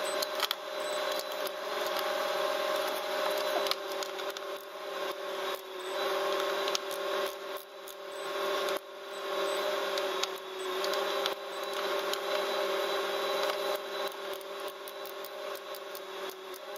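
Ratchet of a digital torque wrench clicking in short runs as bolts on top of a 6.7 L Cummins diesel engine are tightened to 89 inch-pounds, over a steady background hum.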